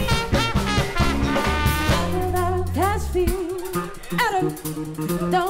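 Live band music: a trumpet line over bass and drums, then a woman singing from about three seconds in as the bass drops away.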